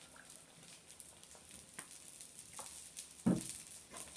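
Egg, tomato and onion omelette frying in a little cooking oil in a frying pan: a quiet sizzle with scattered crackles. A single low thump about three seconds in.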